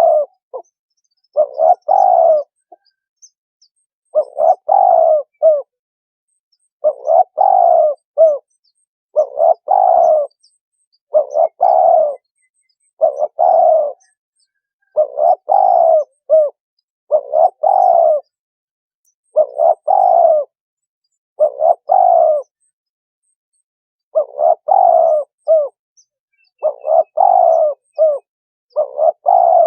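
Spotted dove cooing: short phrases of a few notes each, repeated about every two seconds with silence between them.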